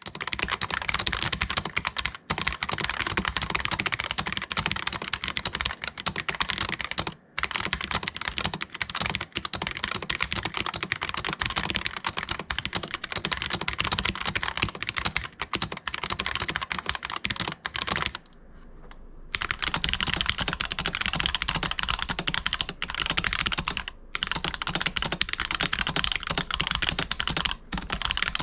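Continuous fast typing on a Womier K66 mechanical keyboard fitted with linear black switches, a dense stream of key clacks, with a short pause about two-thirds of the way through.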